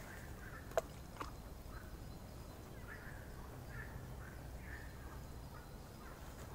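A small firecracker lands in the bog water with a light plop a little under a second in and fails to go off: a dud. After that only quiet outdoor ambience, with faint short animal calls.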